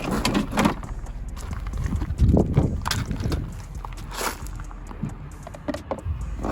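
Irregular clacks and knocks of plastic console and trim pieces being handled, over a low rumble of wind on the microphone.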